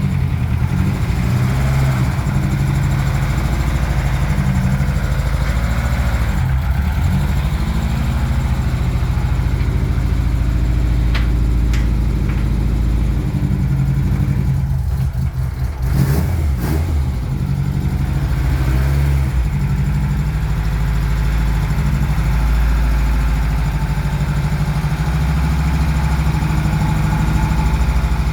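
A car engine running steadily at a low, uneven pitch, with a few brief clicks around the middle.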